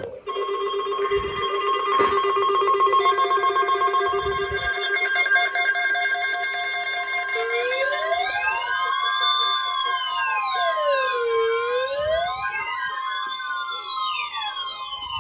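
Several weather alert radios sounding their alarms together for a tornado watch: a steady warning tone with beeping alarm tones over it. About seven seconds in, a siren-like wail that slowly rises and falls joins them.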